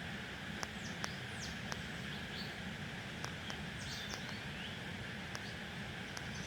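Birds chirping in short, quick calls over a steady low rumble and hiss, with scattered sharp clicks.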